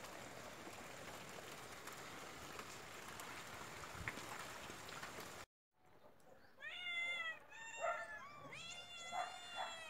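Steady patter of cold rain, which cuts off abruptly about five and a half seconds in. Then cats meow repeatedly in rising and falling calls, some overlapping, through the rest.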